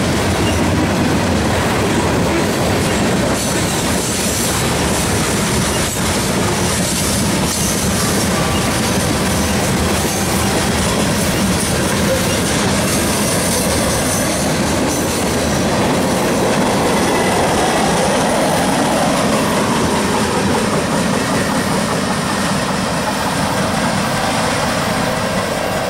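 Freight cars (tank cars and covered hoppers) rolling past on the rails, a steady, loud noise of steel wheels on track that eases slightly near the end as the last cars go by.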